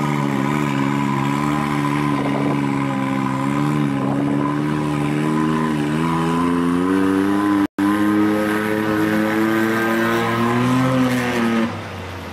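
Rally-raid buggy's engine running at low revs as it drives slowly, its pitch wavering slightly. It cuts out for an instant about eight seconds in, rises a little, then drops away sharply near the end.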